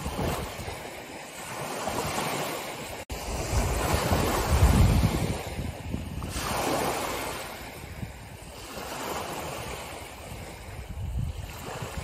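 Small sea waves breaking on the shore and washing back, rising and falling in slow swells. The biggest break comes about four to five seconds in.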